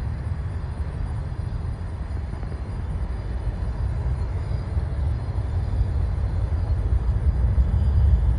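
Low, steady rumble of a jet airliner on its takeoff roll, gradually growing louder over the last few seconds.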